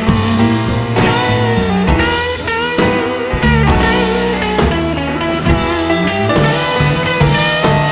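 Background rock music with electric guitar, a bass line and drums.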